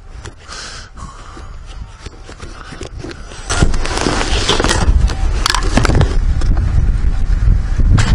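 Rustling and clicks as a motorcycle helmet's chin strap is undone and the helmet is pulled off. From about three and a half seconds in, this turns to loud rubbing and knocking of handling close to the microphone.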